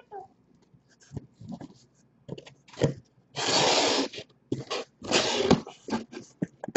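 Cardboard shipping case being handled and opened: short knocks and clicks, with two longer bursts of cardboard scraping and rustling about three and a half and five seconds in.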